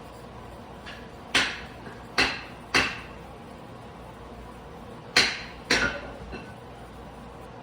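Five sharp knocks of hard objects against each other, in two groups: three close together, then a pause, then two more.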